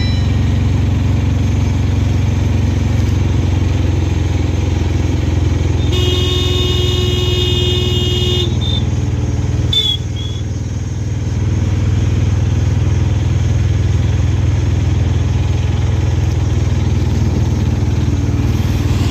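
Auto-rickshaw engine running steadily as the three-wheeler drives along, heard from inside its open cabin. About six seconds in a horn sounds for two to three seconds, and a short beep follows about a second later.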